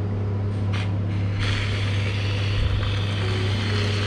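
Stainless-steel whipped cream dispenser spraying cream: a brief hissing spurt about a second in, then a steady hiss lasting about three seconds. A steady low hum runs underneath.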